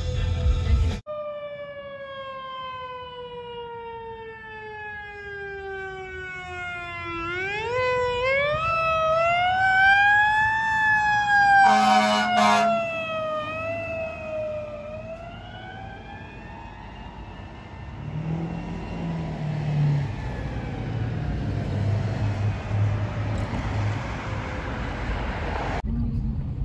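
Fire department ambulance siren wailing, its pitch sliding slowly down, then up and down again as the ambulance passes, with a few short horn blasts about halfway through. Road traffic noise follows as the siren fades.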